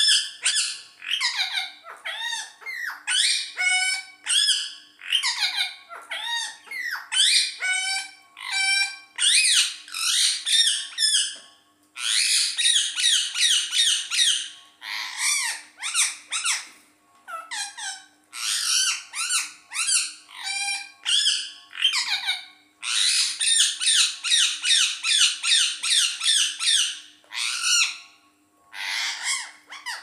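Rose-ringed parakeet calling and chattering at its reflection in a mirror, in quick strings of sharp notes with short pauses, and long runs of fast repeated calls in the middle and toward the end.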